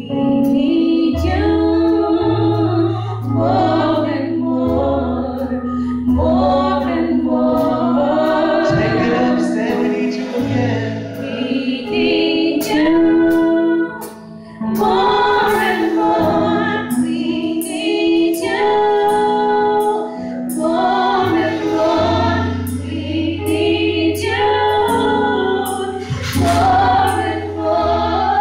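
Three female singers singing a gospel song together at microphones, over an accompaniment of long held bass notes and a steady ticking beat.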